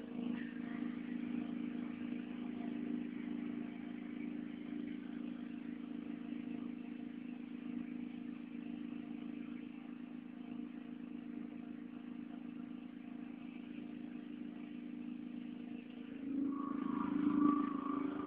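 A three-phase petrol generator running at a steady speed, a constant engine hum that grows louder near the end.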